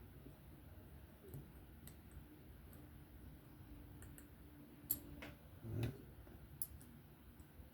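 Faint, scattered clicks of small metal folding-knife parts being handled and set down, with one sharper click about five seconds in and a dull thump just after it.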